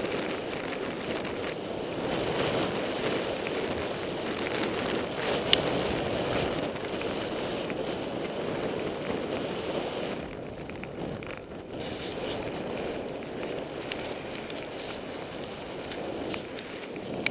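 185 cm Vector Glide Butterknife skis running through fresh powder snow, a steady rushing hiss mixed with wind noise on the microphone. A sharp click about five and a half seconds in, and the rush eases for a couple of seconds around ten seconds in.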